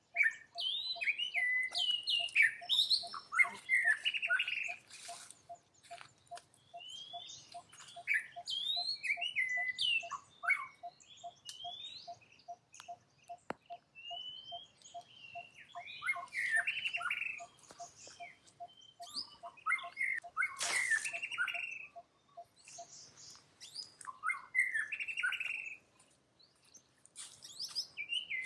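Many short, high-pitched chirping and squeaking animal calls with quick pitch glides, bunched in flurries with a louder cluster a little after twenty seconds. A faint steady pulse at one pitch ticks about twice a second under them and stops a few seconds before the end.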